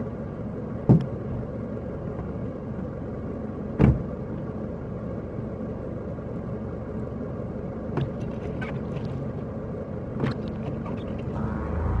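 Car driving on snowy streets: a steady low rumble of engine and tyres, broken by a few short knocks, the loudest about a second in and just before four seconds in. The rumble grows louder near the end.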